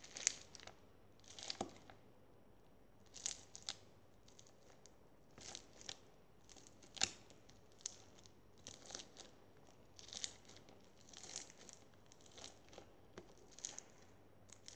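Clear slime packed with pink pearl beads being squished and pressed between fingers. It gives short, sharp squishing and crackling noises at irregular intervals, about one a second.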